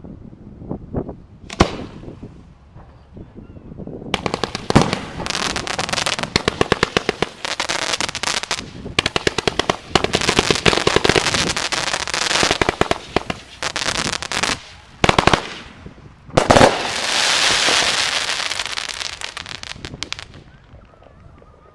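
Fireworks display: a few scattered bangs, then a dense barrage of rapid sharp reports. Near the end come two louder bangs, followed by a long high crackle that fades away.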